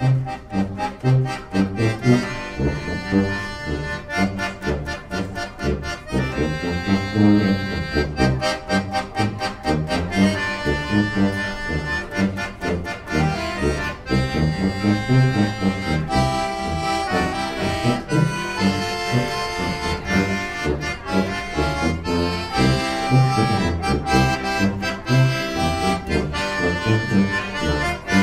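Piano accordion and tuba playing a bouncy 1940s polka-style tune together, the accordion carrying the melody over the tuba's bass line.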